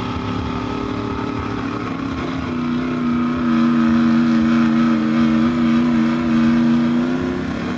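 Diesel pickup truck engine running steadily at high revs, growing louder about three seconds in, then dropping off sharply near the end.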